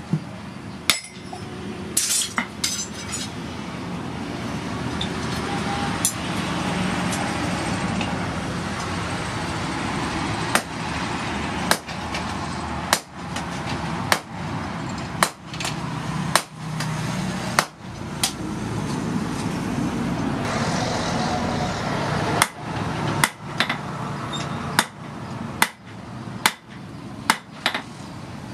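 Hammer and sledgehammer blows on red-hot rebar steel held in tongs on a steel anvil. The blows are scattered at first, settle to about one a second, and come faster near the end, over a steady rushing noise.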